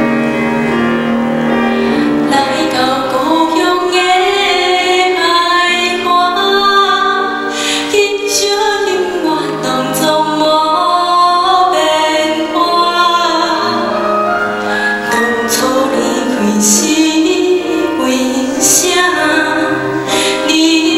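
A woman singing a slow ballad into a microphone, accompanied by a grand piano.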